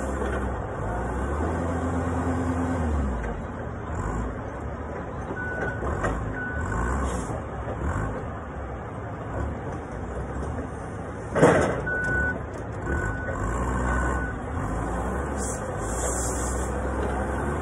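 Forklift working beside a loaded flatbed trailer: engine running, revving briefly near the start, with its reversing alarm beeping in two short runs. A single loud clunk about eleven seconds in.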